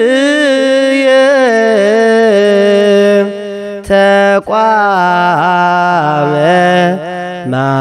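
Male voice chanting liturgical Ge'ez in the Eritrean Orthodox Tewahdo style, long held notes with slow melismatic turns. About four seconds in the chant breaks briefly and two sharp clicks sound.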